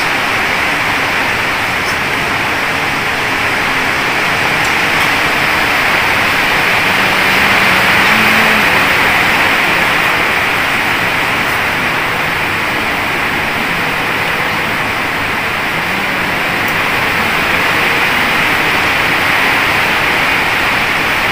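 A steady, loud hiss of even noise that does not change for the whole stretch.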